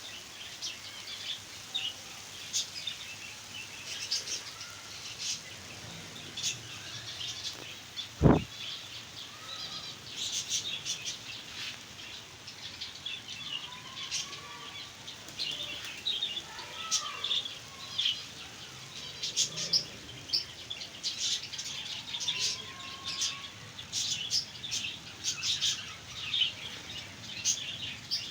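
Small aviary birds chirping and twittering continuously, with many short high chirps and a few whistled glides. A single sharp click about eight seconds in is the loudest sound.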